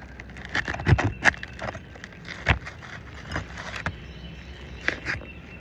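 Irregular scrapes, clicks and knocks of tools and hands working on asphalt 3-tab roof shingles, prying and lifting them to free a damaged shingle.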